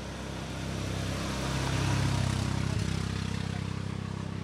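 An engine running with a steady low note, growing louder to a peak about two seconds in and then fading.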